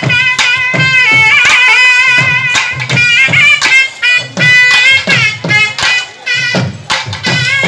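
Traditional Tamil festival music. Barrel drums are beaten with sticks in a steady, repeating beat under a high, wavering melody that is held and bent from note to note.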